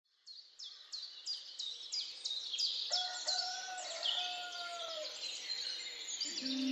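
Birds chirping outdoors: a quick run of short, high, falling chirps, about three a second, with a lower, drawn-out call in the middle. Guitar music starts near the end.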